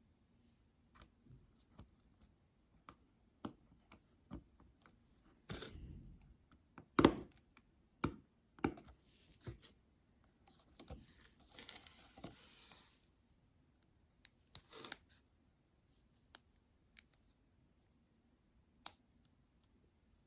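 Small plastic clicks and light scraping as the spacebar keycap of an Apple Magic Keyboard for iPad is handled and fitted onto its mechanism, with one sharp click about seven seconds in.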